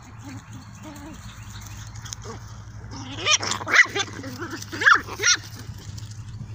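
Puppies barking in play: a run of sharp, high-pitched yapping barks from about three seconds in, four of them loudest.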